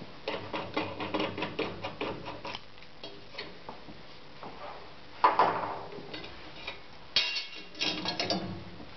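Pneumatic circular saw blade grinder working, making a rapid run of sharp mechanical clicks, then a loud clack about five seconds in and another burst of clacking near the end.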